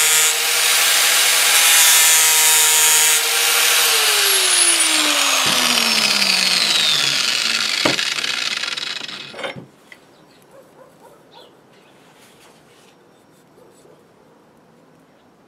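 Angle grinder with a home-made grinding disc, assembled from two cracked discs, grinding steel, then switched off and winding down with a falling whine over about five seconds. Two knocks as the grinder is set down on the wooden table, then only faint handling.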